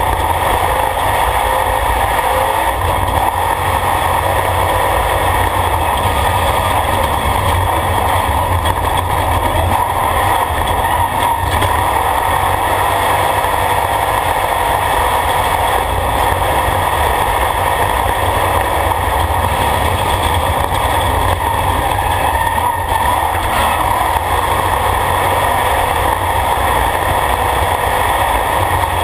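Off-road race vehicle driving on a dirt track, heard from inside the cab: loud, steady engine and road noise.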